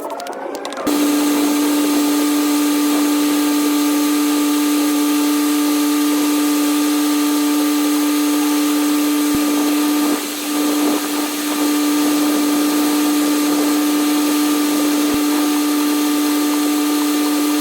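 Hot-water pressure washer spraying oil-stained asphalt: a loud steady hiss of the jet over a steady machine whine. It starts about a second in and briefly eases about two-thirds through, as if the trigger is let off for a moment.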